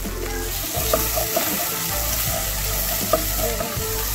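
Blended chilli sambal paste sizzling in hot oil in a pan while it is stirred, with a spoon knocking against the pan several times.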